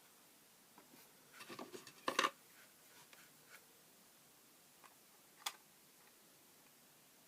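Small plastic model-kit parts and tools handled on a workbench: a short run of light clicks and taps about one and a half to two seconds in, then a single sharp click about five and a half seconds in.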